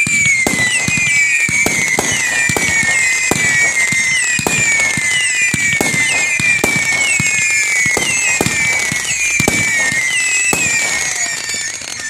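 A volley of whistling fireworks: many shrill, squeaky whistles overlap, each dropping slightly in pitch, over a rapid string of pops. The volley dies away near the end.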